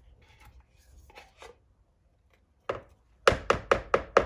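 Faint scraping, then a single knock followed by a quick run of about six sharp knocks, roughly five a second: a spatula being tapped against the bowl's edge to shake off condensed cream of mushroom soup.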